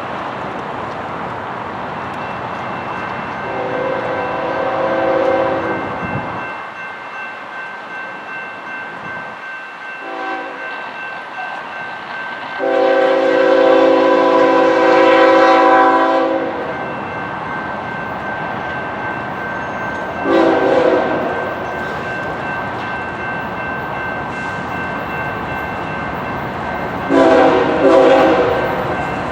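Diesel locomotive's air horn, sounding a chord of several tones, blows a series of blasts: a long one a few seconds in, a short toot, the longest and loudest blast near the middle, another short toot, and two quick blasts near the end. Under the horn the train rolls by steadily.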